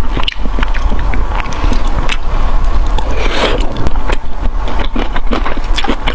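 A person chewing and biting food close to the microphone: many quick wet clicks and smacks of mixed strength, over a steady low rumble.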